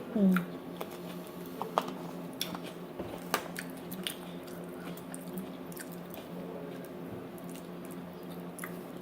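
Close-up chewing and biting of fried chicken taquitos, with scattered soft crunches and clicks over a steady low hum. A short falling-pitch sound right at the start is the loudest moment.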